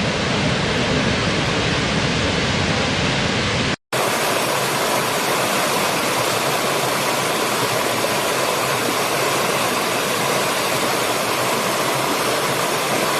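Steady rushing water of a waterfall, as two recordings spliced together. There is a brief dropout just under four seconds in, after which the rush is brighter and hissier.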